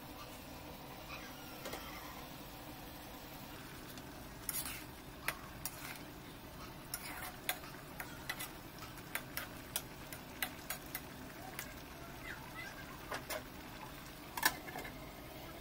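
Spatula stirring food in a cooking pan, with irregular clicks and knocks against the pan from about four seconds in, over a faint steady hiss.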